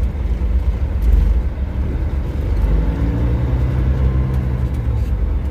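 Kenworth W900 semi truck's diesel engine running, heard from inside the cab as a deep, steady rumble; about halfway in, a steadier humming engine note sets in.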